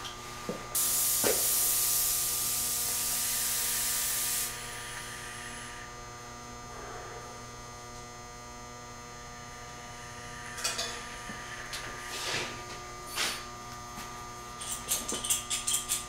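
A steady hissing spray that starts and stops abruptly and lasts about four seconds, over a constant electrical hum. Later come a few short metallic clicks and knocks.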